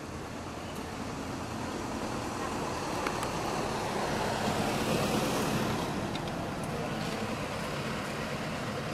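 A road vehicle passing, its noise growing louder to a peak about halfway through and then fading.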